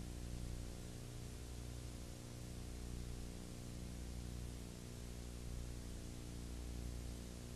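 Steady electrical hum with many evenly spaced overtones over an even background hiss, unchanging throughout. It is the noise floor of a transfer of a silent 1920s home movie, with no sound from the scene itself.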